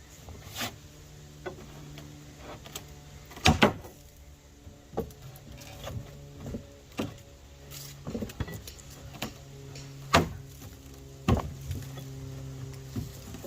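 Old nailed-down deck boards being pried up: the wood and nails creak and groan in long drawn tones, with scattered knocks and taps, a few of them loud.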